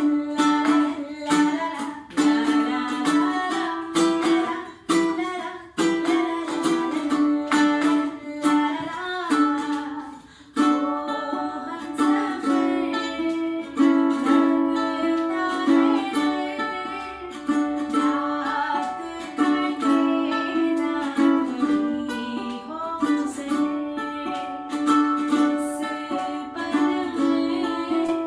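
A woman singing a slow melody to a strummed ukulele accompaniment, with a brief break in the playing about ten seconds in.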